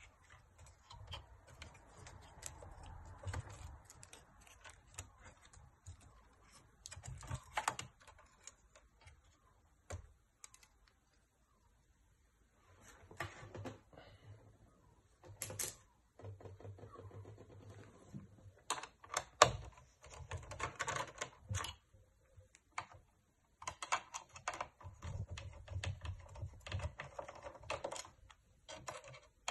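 Irregular bursts of small metallic clicks, taps and rattles as screws are undone with a precision screwdriver and the metal parts of a PS3's chassis are handled and lifted.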